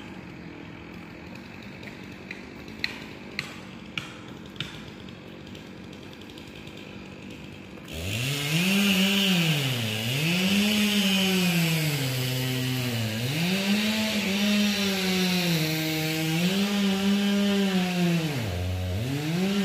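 Small petrol engine of a workers' power tool, such as a chainsaw, comes in suddenly about eight seconds in and revs up and down over and over, each rise held for a second or two before it drops back. Before it, five sharp clicks about half a second apart.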